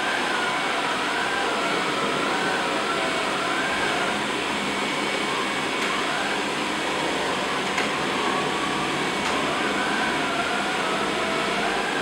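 Ameribot 720 robot vacuum running: a steady rush of motor and suction noise with a faint whine that wavers up and down in pitch.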